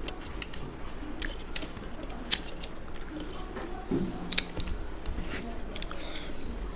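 Chewing and eating sounds of a person eating rice with rohu fish curry and vegetable stalks: scattered soft wet clicks and smacks.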